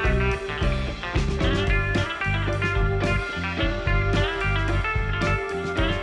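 Background music led by guitar over a steady bass, with a regular beat.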